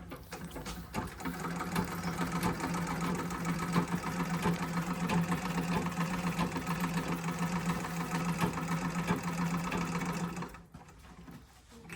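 Antique treadle sewing machine sewing steadily, the needle mechanism ticking rapidly over a steady hum, freshly oiled. It slows and stops about ten and a half seconds in.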